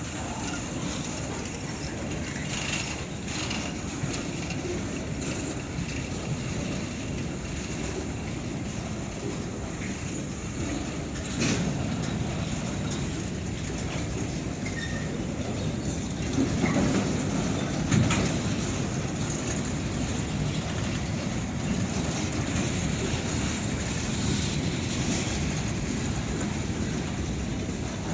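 Long freight train's cars rolling past on the rails as a steady running noise, with two sharp louder knocks about 11 and 18 seconds in.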